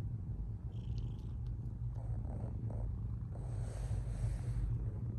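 Ragdoll kitten purring steadily, close to the microphone, with a soft breathy rush of air about three and a half seconds in.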